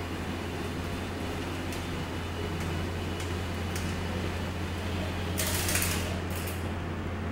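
Linear actuators of a legged walking robot running as it steps, with a steady low hum and a few light clicks. A short hiss comes about five and a half seconds in.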